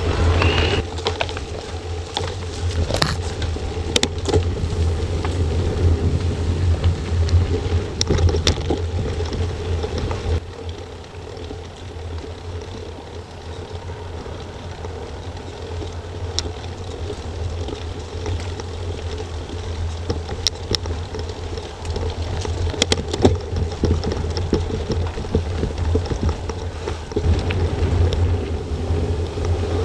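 Mountain bike ridden over gravel and dirt trail, heard through an action camera's microphone: a steady low rumble of wind and tyre noise with scattered rattles and knocks from the bike. The level drops suddenly about ten seconds in and rises again later.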